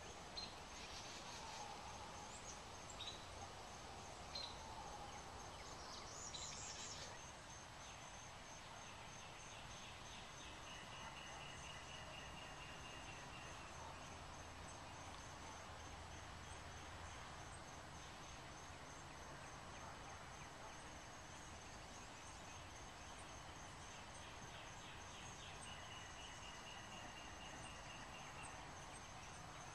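Faint outdoor garden ambience: a few short high chirps in the first several seconds, and a rapid trill that comes twice, over a faint, steady, high-pitched pulsing tone.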